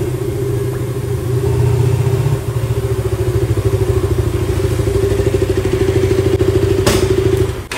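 KTM Duke 200's single-cylinder engine running steadily with a fast, even pulse; about seven seconds in there is a click and the engine cuts off.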